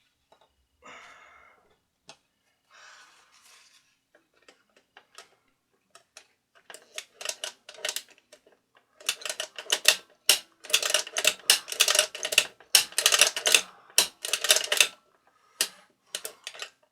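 Rapid runs of sharp metallic clicks and rattles from small metal parts being handled, as a plate is fitted back onto a record player's changer mechanism. The clicking is sparse at first and grows dense and loud in the second half.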